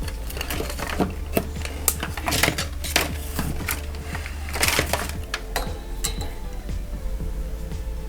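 Irregular clicks, taps and light clatter of small tools and parts being handled on a workbench, over a steady low hum.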